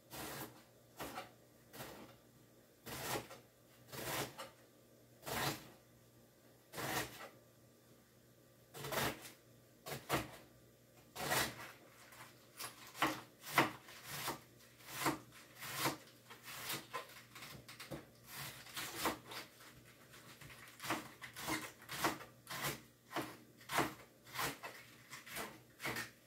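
Kitchen knife dicing cabbage on a cutting board: separate cuts knocking on the board, about one a second at first, then faster, about two a second, from about twelve seconds in.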